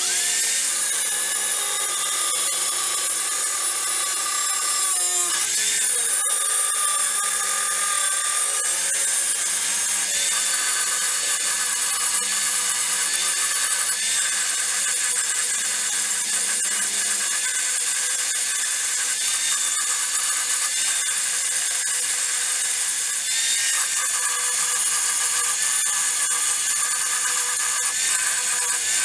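Corded power tool running steadily with a high whine as it cuts through the metal child-seat anchor brackets on a seat frame.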